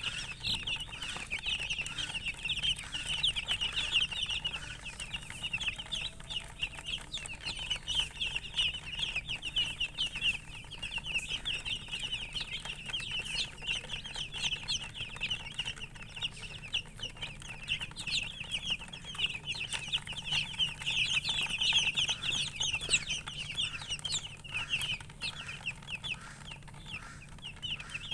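A group of chicks peeping continuously: many rapid, overlapping high chirps, each falling briefly in pitch.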